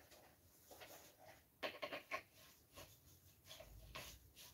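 Quiet handling of a rubber gas mask with its filter canister: a short cluster of sharp clicks and light knocks about one and a half to two seconds in, a few faint ticks around it, and a soft low thump near the end.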